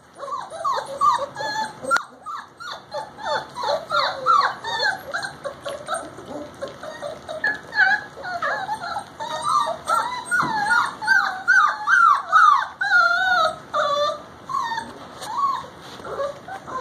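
A litter of four-week-old puppies whining and yipping, with many short high squeals overlapping. The calls grow busier and longer through the middle of the stretch.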